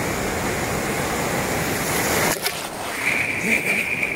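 Sea surf washing in around the microphone: a dense, even rush that cuts off sharply a little past two seconds in. Near the end a steady, slightly wavering high whine sets in.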